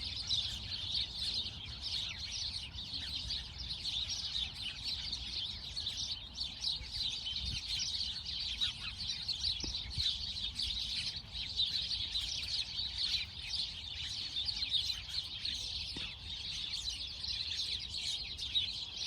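A flock of sparrows chirping continuously, many short overlapping chirps with no pause, over a low background rumble.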